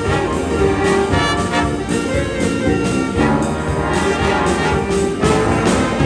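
A band playing with a brass horn section, held horn notes over a steady drum beat.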